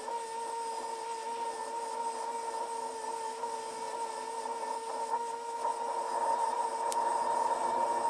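Bench grinder with a wire wheel running with a steady whine while a wooden stick is held against the spinning wheel, the wire bristles scratching over the wood. The scratching grows louder in the last couple of seconds.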